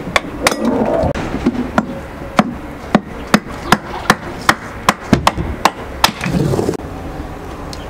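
Steel meat cleaver chopping kindling sticks on a concrete floor: a quick run of sharp whacks, about three a second, that stops near the end.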